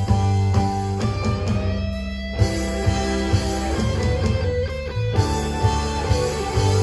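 Instrumental pop-rock interlude led by an electric guitar, a Yamaha Pacifica through a Boss Katana amp, playing a sustained melody with string bends, over electric bass and drums.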